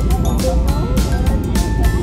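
Background music with a steady beat, about four beats a second, and a wavering melody line.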